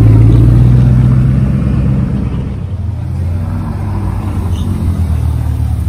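Bugatti Chiron's quad-turbo W16 engine running at low speed as it drives slowly past, a loud steady drone that eases off over the first two seconds or so. Then a Ferrari F8's twin-turbo V8 follows at low speed, its pitch rising and falling once about three seconds in.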